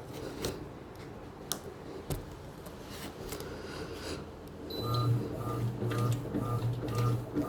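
Washing machine motor humming in short, repeated pulses, about two a second, starting about two-thirds of the way in. Before that there are a few scattered clicks.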